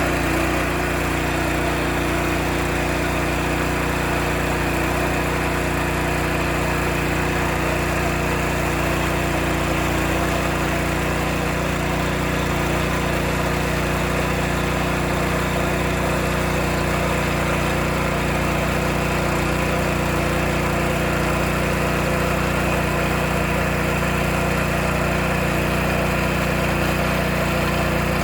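Engine of a UKB drilling rig running steadily at an even speed.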